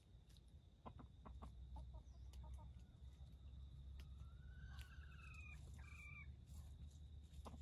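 A rooster crows once, faintly, about four seconds in: a rising first note followed by two higher pieces. Before it, a few light ticks and crackles of dry leaf litter.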